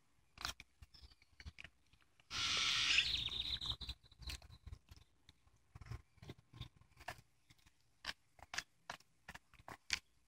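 Dog gnawing a bone: irregular crunching and clicking of teeth on bone. About two seconds in, a louder rushing noise lasts for about a second and a half.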